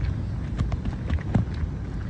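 Wind rumbling on the microphone, with a series of irregular light clicks and taps; the loudest knock comes a little past halfway.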